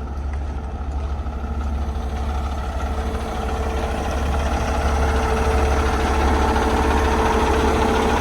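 Diesel engine of an end-dump semi truck idling steadily with a low hum, growing somewhat louder about four seconds in.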